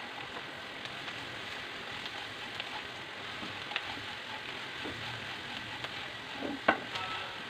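Sliced bitter gourd and onions sizzling in hot oil in a kadai while a silicone spatula stirs the spices through, with scattered light scrapes and one sharper knock near the end.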